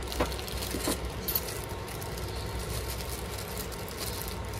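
Small metal tools rattling inside a plastic bag as it is handled, with a few light clicks in the first second and a half, over a low steady hum.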